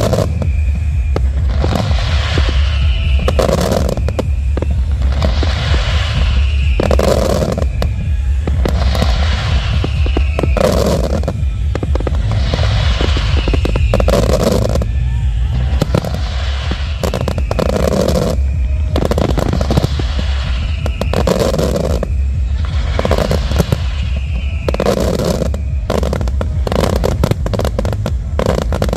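Aerial fireworks bursting and crackling over loud music, a musical phrase repeating about every two seconds. The bangs come thicker near the end.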